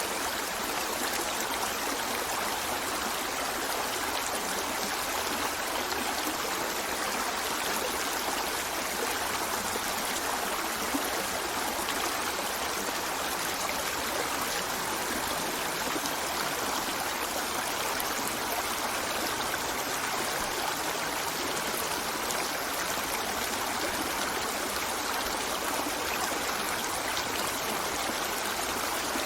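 A river flowing steadily over rocks: an even rushing and babbling of water.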